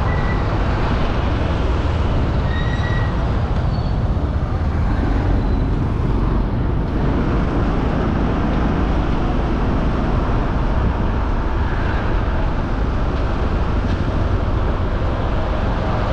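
Steady street traffic noise: a continuous rumble of passing vehicles.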